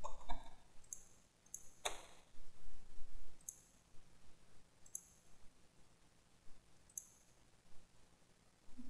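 Computer mouse clicks: about half a dozen sharp, light clicks spaced a second or more apart, with one louder knock about two seconds in.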